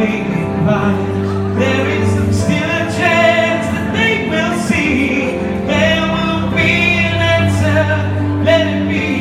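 Live song: a man singing into a handheld microphone over digital piano accompaniment, amplified through a PA system, in sung phrases over held piano chords.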